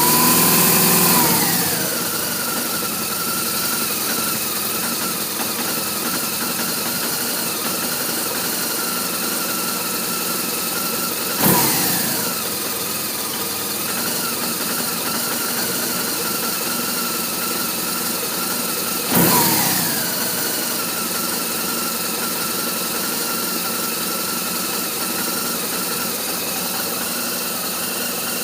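BMW R1200RT motorcycle's boxer-twin engine idling, a rough idle by the owner's account. It drops back from higher revs in the first couple of seconds, then idles steadily, with two quick throttle blips, one about a third of the way in and another about two-thirds in.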